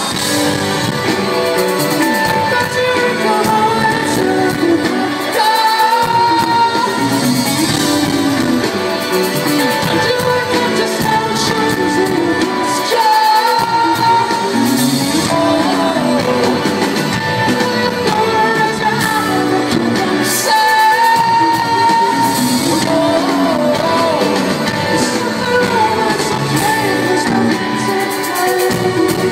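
Indie rock band playing live, with a sung lead vocal over guitars and drums.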